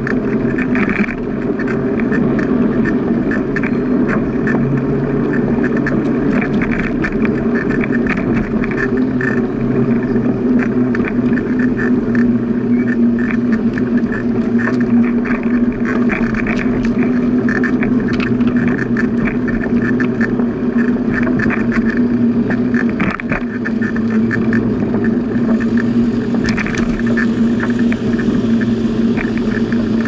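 Steady riding noise from a bicycle on a paved cycling path: tyres rolling and a constant hum, with frequent small ticks and knocks from bumps in the surface.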